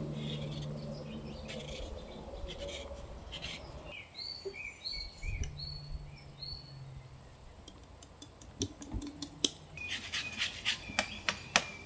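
Rasp zester scraping zest off an orange peel in a run of quick, sharp strokes, most of them near the end. A bird chirps a few times in the middle, over a faint low hum.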